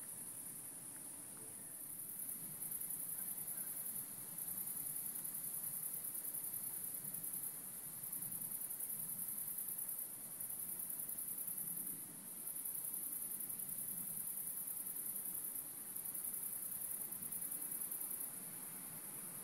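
Crickets trilling at night: a high-pitched trill that comes in stretches of two to three seconds with short breaks between them.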